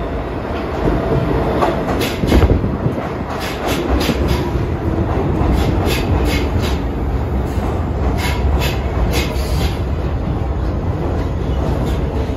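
Vintage New York City subway cars pulling into an underground station and running past along the platform: a steady rumble with the wheels clicking over the rail joints, and one loud knock about two seconds in.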